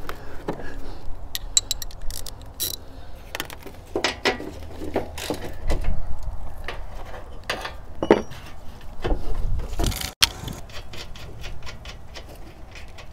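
Socket ratchet clicking and sockets and tools clinking in short, irregular bursts as bolts and nuts are undone on an old car's front valance, with a low rumble underneath.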